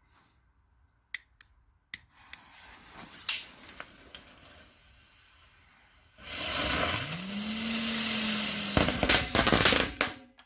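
A small sparkler-type firework lit and burning: a few clicks, a faint hiss for a few seconds, then a loud hissing, crackling spray of sparks for about four seconds with a low tone rising partway through, ending abruptly.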